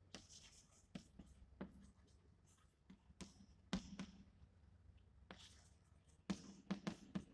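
Chalk writing on a blackboard: faint taps and short scratches as the chalk strokes out letters, with a quick run of taps near the end.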